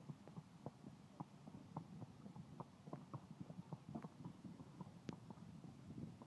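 Faint hoofbeats of a horse cantering and jumping on soft arena footing: a run of muffled, irregular thuds, with one sharper click about five seconds in.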